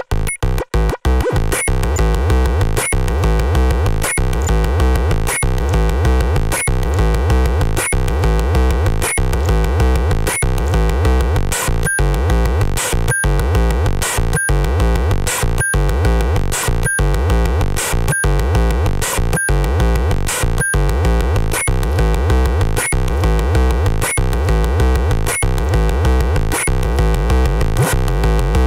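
Arturia MicroBrute analog monosynth running a looping step-sequencer pattern of harsh, glitchy, noisy tones with a deep low end. It plays choppy notes with gaps at first, then becomes continuous about a second in, with a steady repeating pulse.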